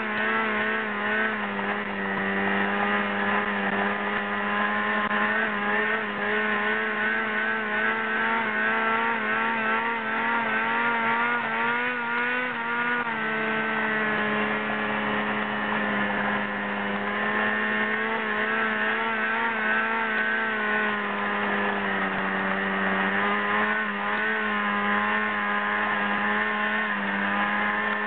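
Snowmobile engine running steadily while ridden over a gravel dirt road, its pitch dipping briefly about halfway through.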